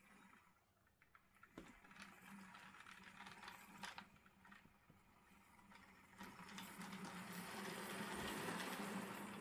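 Bachmann OO-gauge Jubilee class model steam locomotive running along the track: a faint whir of its motor and running gear with scattered clicks from the wheels on the rails, growing louder toward about eight seconds in.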